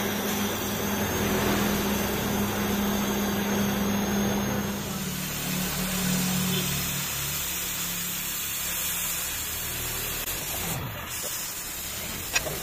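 Oxy-fuel cutting torch hissing steadily as it flame-cuts the steel flights of an auger screw turning on a lathe, with the lathe's motor humming underneath. There is one sharp click near the end.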